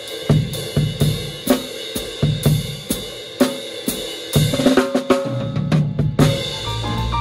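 Acoustic drum kit playing a steady beat on kick drum, snare and Zildjian cymbals, the cymbals ringing over the hits. About four and a half seconds in it breaks into a busier fill.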